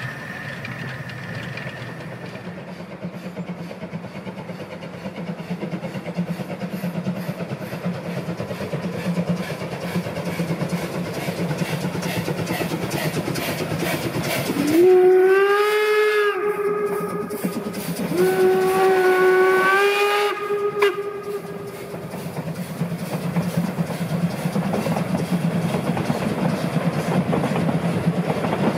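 A 750 mm narrow-gauge steam locomotive, 99 1762, working a train with a steady rhythmic chuff. About halfway through it sounds its steam whistle twice: a short blast that rises to a steady note, then a longer blast of about three seconds.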